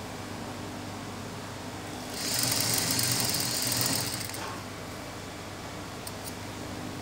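Sewing machine running in one short burst of stitching, about two seconds long and starting about two seconds in, as it sews the folded hem of a trouser leg. A steady low hum runs throughout.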